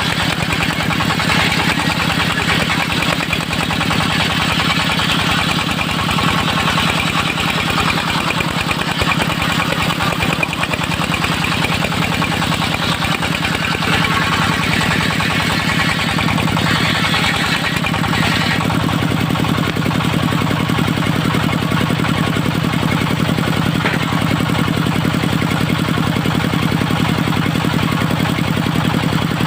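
Diesel engine of a portable circular-saw sawmill running steadily, with the blade cutting through a teak log, a dense hiss over the engine, until about 18 seconds in, when the cut noise stops and the engine runs on alone.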